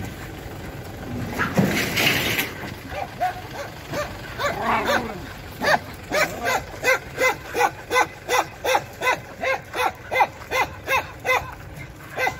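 Dog barking in a quick, even run of short barks, about three a second, starting around six seconds in. A brief noisy burst comes about two seconds in, and a wavering call shortly before the barking.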